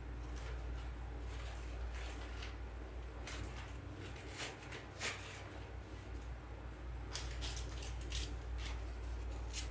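Rustling and crinkling of artificial flowers, leaves and berry stems being handled and tucked into a floral arrangement, with a few short sharp clicks scattered through.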